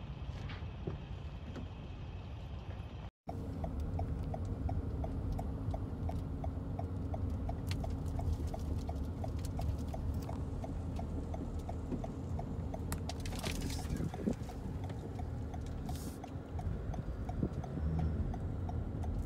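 Low rumble inside a car cabin while driving through a burning forest, with an even mechanical ticking about three times a second. A quieter low rumble comes before it and cuts off suddenly about three seconds in.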